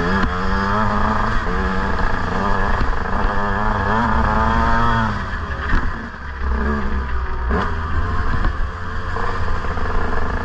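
KTM 150 SX two-stroke single-cylinder dirt bike engine revving under the rider, its pitch rising and falling with the throttle. The throttle closes briefly about halfway through, the engine dropping back, then it revs up again.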